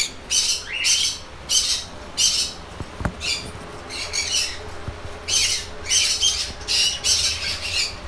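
Budgerigars squawking and chattering, short high calls in irregular bursts about one to two a second, with a single sharp click about three seconds in.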